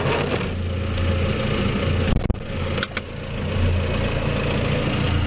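John Deere tractor engine running steadily at a low hum, with a few brief knocks about two to three seconds in.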